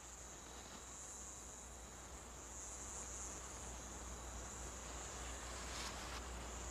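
Faint, steady, high-pitched insect trilling, cricket-like, over a low hum, with a brief hiss about six seconds in.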